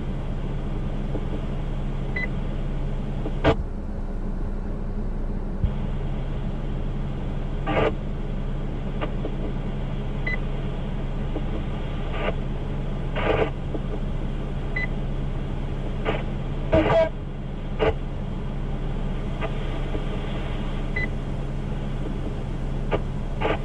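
Radio scanner's open-channel hum and hiss, broken several times by short static bursts and squelch clicks as carriers key up briefly, with a faint short high beep about every four seconds.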